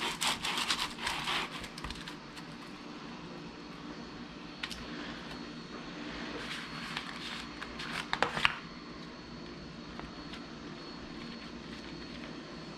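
Light scrapes and clicks of a metal cookie cutter pressed through baked cookies on a metal baking tray, with the pieces lifted onto a plate. The clicks come mostly in the first second or two and again about eight seconds in, over a steady low hum.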